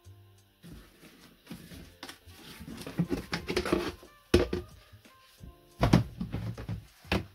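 Plastic storage tubs being handled and set down: scraping, then hollow plastic knocks, the loudest about four and a half and six seconds in. Soft background music plays underneath.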